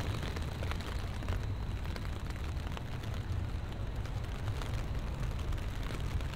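Rain falling on a city street, with many scattered ticks of drops over a steady low rumble.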